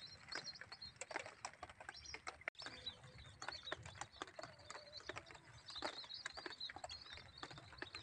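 Lesser whistling ducks calling: faint, repeated high chattering whistles, mixed with light ticks.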